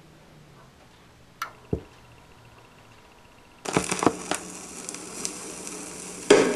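Turntable playing a 45 rpm vinyl single: two clicks, then about three and a half seconds in the stylus sets down and the lead-in groove's surface hiss and crackle begins. A loud first note of the record comes in at the very end.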